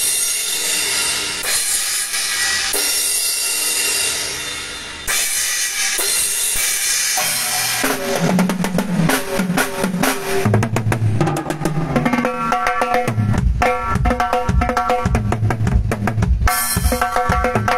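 Drum kit played during a soundcheck. Cymbals wash for the first several seconds, then a fill runs down the toms with the bass drum, and from about twelve seconds in it settles into a steady beat of bass drum and ringing higher drums.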